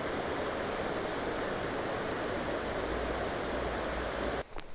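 Creek water rushing over a rock ledge and through a riffle: a steady rushing noise that cuts off suddenly near the end.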